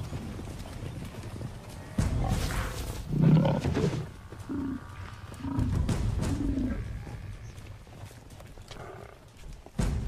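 Lion growling and snarling at close quarters. There is a sudden loud outburst about two seconds in and the loudest growl at about three seconds, followed by several shorter calls.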